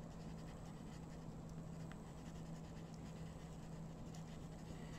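Tombow colored pencil scratching faintly on drawing paper in repeated short strokes, over a steady low hum.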